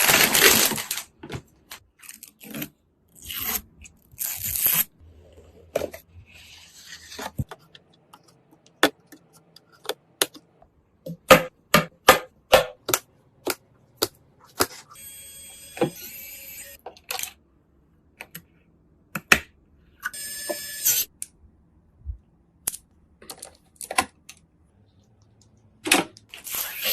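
PC parts and their packaging being handled during a gaming PC build: a string of sharp clicks and taps of plastic and metal pieces, with short spells of scraping and rustling of boxes and wrappers between them. Twice near the middle comes a brief ringing rattle.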